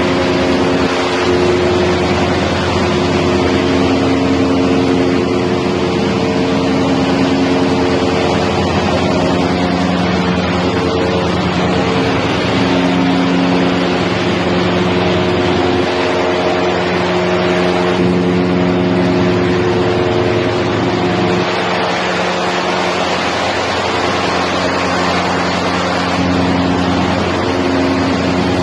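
Tyre recycling granulator line running: loud, steady machine noise with several humming tones that come and go.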